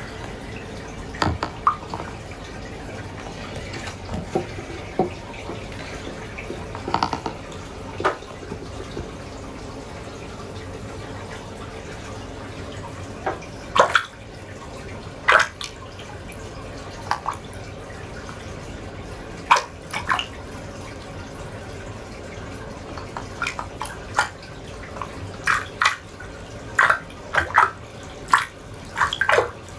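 Water splashing and dripping in a small plastic tub as hands hold a struggling cichlid in an aquarium net: irregular short splashes and drips, sparse at first and coming thicker in the second half.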